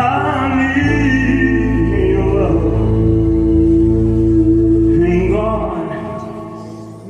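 Music: the closing bars of a ballad with a long held note, fading out near the end.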